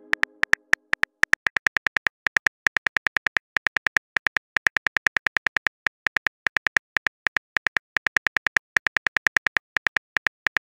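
Simulated phone-keyboard typing clicks from a texting-story app: a fast, even run of short taps, about seven a second, with a few brief pauses.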